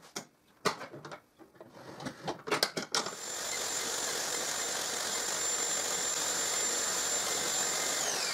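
Knocks and clicks of the wooden table saw sled being handled. About three seconds in, the table saw's motor starts and runs steadily with a high whine, with no sign of cutting load. Near the end it is switched off and the whine falls as the blade spins down.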